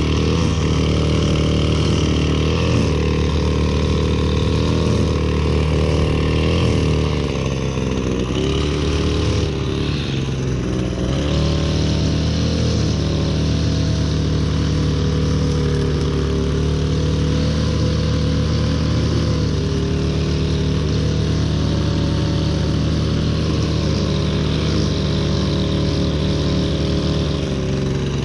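String trimmer running steadily while its line cuts grass along a lawn edge. The motor's note eases a little about eight seconds in and comes back up a few seconds later.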